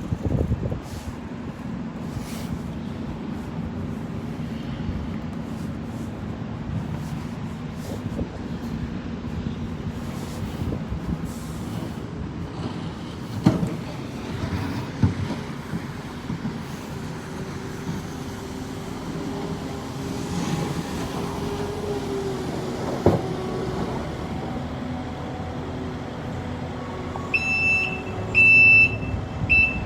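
Heavy vehicle engine running with a steady low rumble, a few sharp knocks along the way, and three loud high-pitched electronic beeps near the end.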